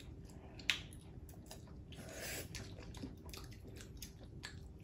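Faint wet chewing and small mouth clicks from children eating sour olives, with one sharper click under a second in.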